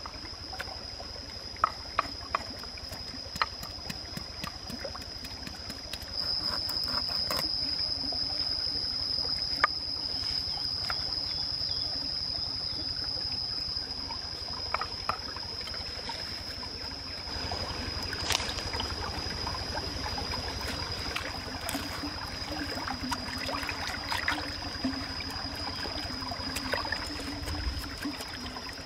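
A small stream trickling over rocks, with a steady high-pitched insect drone that grows louder about six seconds in. Irregular sharp knocks of a knife chopping fish on a board.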